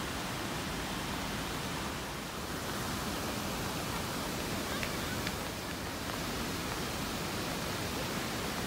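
A steady, even rushing noise, with faint voices of people talking.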